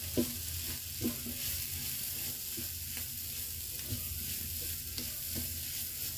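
Wooden spatula stirring and mashing a potato and vegetable mixture in a nonstick pan, with short scrapes and taps against the pan about every second over a steady low sizzle of the frying mix.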